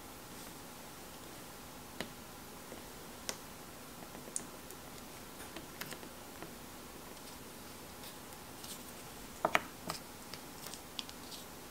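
Scattered small plastic clicks and taps as watercolour paint tubes, their screw caps and a plastic palette are handled, with a sharper double click about nine and a half seconds in, over a faint steady hiss.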